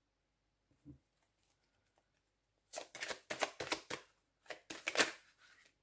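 A deck of tarot cards being shuffled by hand: a run of about ten quick, papery card swishes and snaps over two or three seconds, after a single soft thump about a second in.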